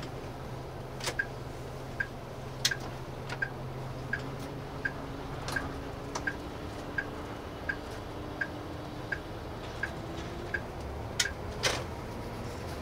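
A bus's turn-signal flasher ticking evenly, about one tick every 0.7 seconds, heard inside the cabin over the steady hum of the diesel engine. There are a few louder clicks about a second in and again near the end.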